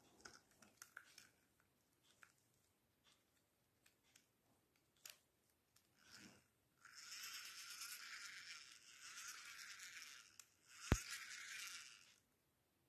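Small plastic toy monster truck being handled: faint light clicks and rattles, then a steady hissing whir for about five seconds with one sharp click near the end.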